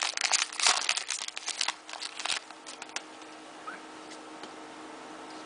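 A trading card pack's wrapper being torn open and crinkled: a quick run of crackles that stops about two and a half seconds in, with a few last clicks after.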